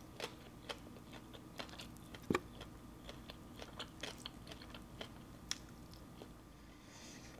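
Close-miked chewing and biting while eating spicy papaya salad and grilled chicken wings: soft wet mouth clicks and small crunches, with one sharper click about two seconds in.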